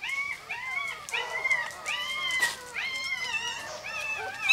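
Newborn Rottweiler puppies squealing and whimpering: a rapid string of short, high-pitched cries, several overlapping.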